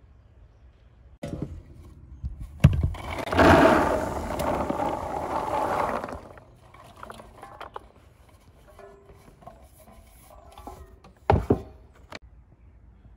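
Pomegranate arils poured by hand from a tipped basin into a plastic colander: a couple of sharp knocks, then about three seconds of a dense rush of seeds sliding and pattering. It is followed by scattered small clicks and another sharp knock near the end.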